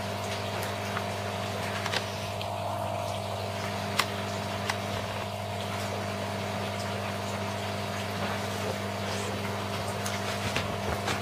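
Steady low electrical or motor hum with a faint higher whine over it, and a few small clicks about two and four seconds in.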